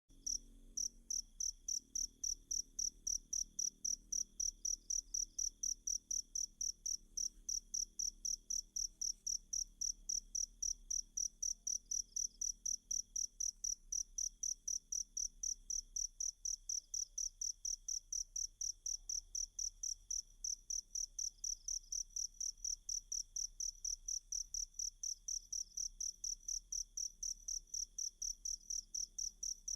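Field cricket chirping in a fast, even rhythm of high-pitched pulses, about four or five a second, with a fainter steady insect trill beneath it.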